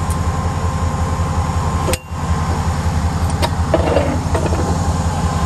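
Truck engine idling steadily, with a brief break about two seconds in.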